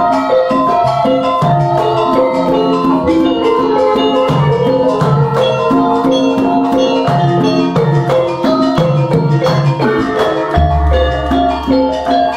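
Javanese gamelan ensemble playing: bronze metallophones and pot gongs strike a running melody in even notes. A deep gong stroke comes in about ten and a half seconds in and hangs on.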